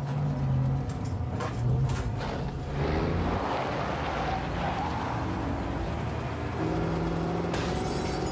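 A truck's engine running as it drives off, revving up about three seconds in and then running steadily at a higher pitch.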